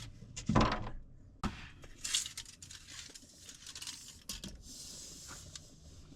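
Handling noise from measuring with a metal tape measure: a sharp click about a second and a half in, a short rasp, then a few light ticks and clinks.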